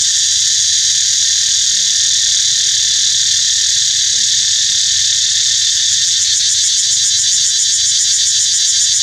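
Loud, steady chorus of insects: a dense, high-pitched shrill buzz with a fine, rapid pulse that does not let up.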